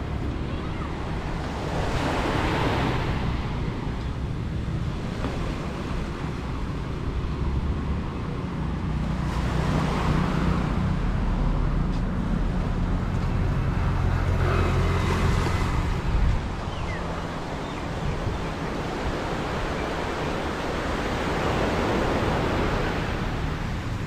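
Small surf breaking on a sandy beach, its wash rising and falling every several seconds over a steady low rumble.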